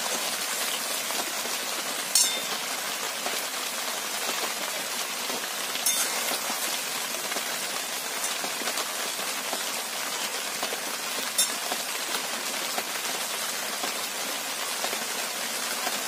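Chicken and tomatoes simmering in their own juice in a hot metal kadai, a steady sizzling hiss, with a few sharp clinks of a metal spatula against the pan, about two, six and eleven seconds in.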